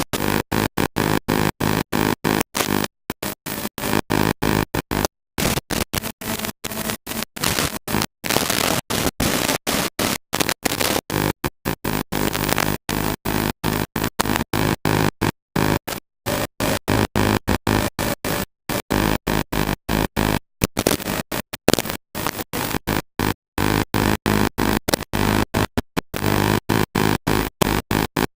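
Loud, noisy electronic music, chopped by short gaps several times a second.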